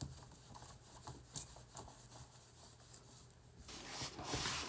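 Rolled diamond-painting canvas with its plastic film being handled and rolled: faint scattered rustles, then a louder crinkling rustle starting about three and a half seconds in. A steady low hum sits underneath.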